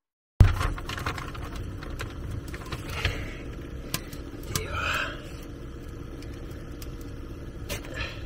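An aluminium beer can being handled and its ring-pull cracked open about halfway through: a sharp click and then a short fizzing hiss. A steady low hum runs underneath.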